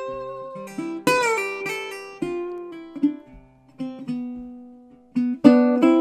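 Acoustic guitar played slowly: single notes and small chords each ring out and fade, with a note bending in pitch about a second in. Near the end, after a short lull, comes a louder strummed chord.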